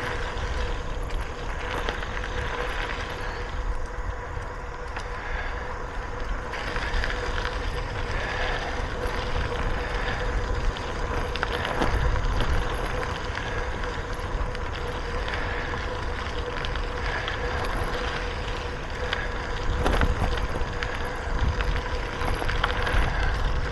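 Bicycle riding along a trail: steady tyre rumble and wind buffeting the microphone, with a few brief knocks about halfway through and near the end.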